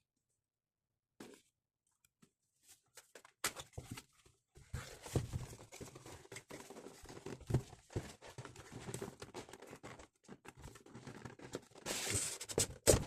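Packaging on a keyboard box being torn and crinkled by hand: irregular crackling, rustling and small clicks that begin a few seconds in and grow louder near the end.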